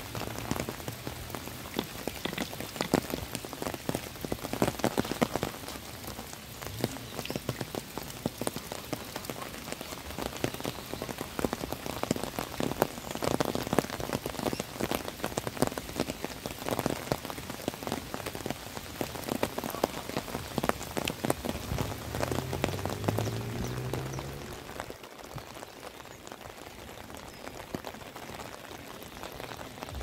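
Heavy rain pouring onto flooded ground and water, a dense patter of many sharp drop hits. It eases a little in the last few seconds.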